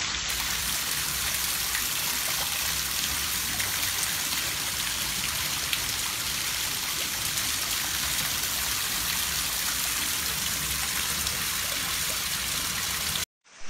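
Water leaking down the face of a wall panel and splashing onto a tiled floor: a steady splashing hiss that cuts off abruptly near the end.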